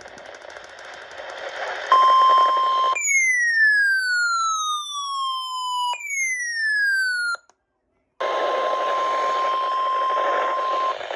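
Weather radio alert tones over radio static: a steady high beep, then two falling siren-like sweeps, the first about three seconds long and the second shorter. After a moment of dead air comes a steady warning tone of about 1 kHz lasting roughly three seconds, which signals the flash flood warning that follows.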